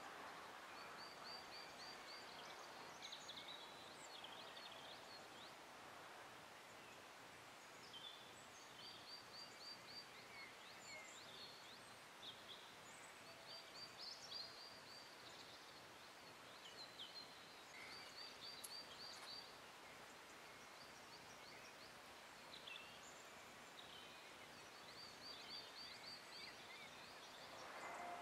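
Faint outdoor quiet with small birds calling: short, high, rapid trills repeated every few seconds among scattered chirps. A brief rustle of pine foliage being handled near the end.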